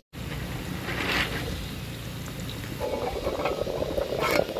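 Rice and water boiling in a clay pot, a steady bubbling, with a few sharp metallic clinks near the end as the pot's steel lid is moved.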